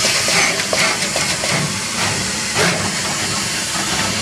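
Surface-mount pick-and-place machine running: a steady airy hiss with faint light ticks from the placement head.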